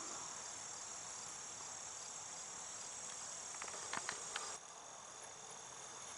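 Steady, faint, high-pitched trill of crickets that drops a little in level about four and a half seconds in, with a few soft ticks just before.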